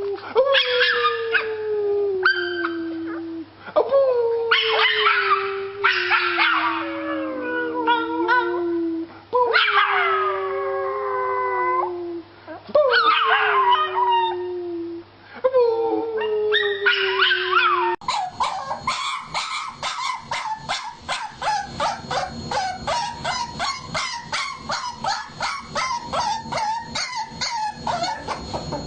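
A puppy howling: a run of long howls, each sliding down in pitch. About two-thirds of the way in, the sound changes abruptly to a rapid pulsing, about three pulses a second.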